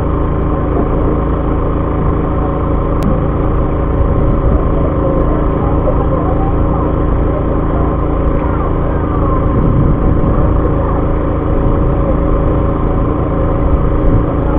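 A fishing boat's engine running steadily: a constant hum of unchanging pitch over a low rumble.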